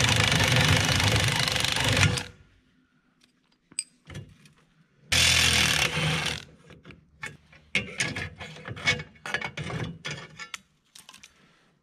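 Cordless drill running against a snowmobile's steel ski as a plastic ski skin is fastened on: one burst of about two seconds, then a shorter one a few seconds later. After it comes a run of light clicks and knocks.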